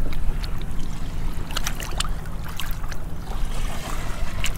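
Boat engine running steadily at idle, with water lapping and small splashes.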